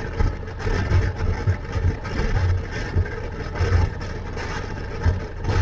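Motorcycle riding along at road speed: the engine runs steadily under wind noise, which buffets the microphone in irregular low rumbles.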